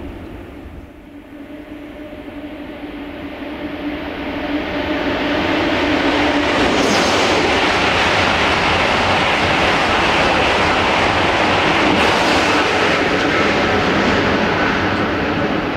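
A train passing close by: the rushing noise of wheels on rail and moving air swells over the first few seconds, with a steady hum under it, then stays loud and steady as the train goes by, easing slightly near the end.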